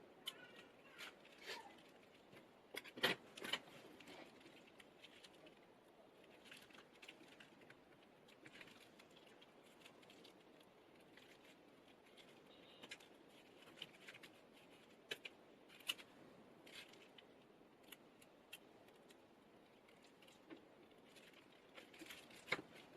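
Faint, scattered clicks and light taps of small parts and hand tools being handled while a smartphone is put back together. The loudest are two clicks about three seconds in.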